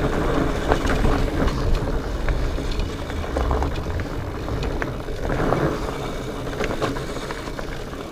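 Specialized Fatboy fat bike being ridden along a rocky trail: a steady rush of wind on the microphone and the fat tyres rumbling over the ground, with scattered clicks and rattles from the bike.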